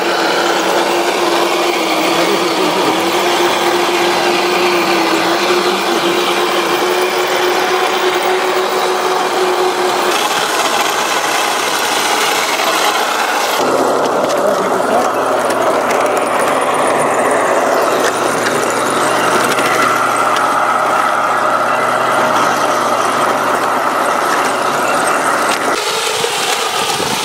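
Radio-controlled model tanks driving over dirt: small electric drive motors whining steadily with gearbox and track rattle. The whine holds one pitch for the first ten seconds, then shifts higher about halfway through.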